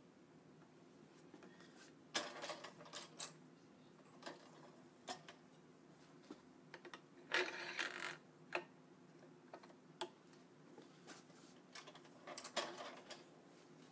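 Scattered clicks and short rattles, in several clusters, from string being handled and the badminton stringing machine's turntable and clamps being worked.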